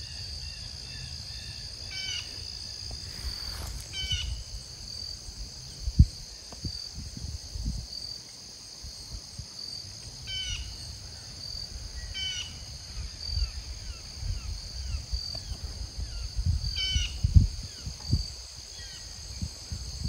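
Outdoor insect chorus: crickets trilling steadily, with a high chirp repeating less than a second apart. A bird gives short chirping calls now and then, over low rumbles and bumps.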